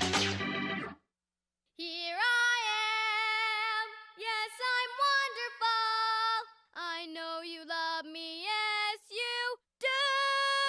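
A girl's voice singing alone, unaccompanied: a melody of long held notes with sliding pitch changes and short breaks, starting about two seconds in, after a music cue stops about a second in.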